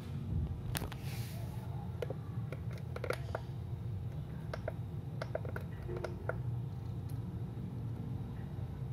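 Scattered light clicks and taps as the control buttons of a digital photo frame are pressed and the frame is handled, over a steady low hum.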